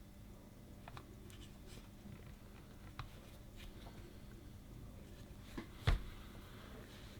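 Faint scattered clicks and light taps of hand tools and small parts being handled during bench soldering work, with one sharper knock about six seconds in, over a low steady hum.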